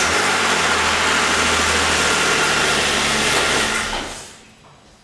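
Car engine catching after a start and idling steadily for about three and a half seconds, with a steady low hum. Near the end it is switched off and runs down.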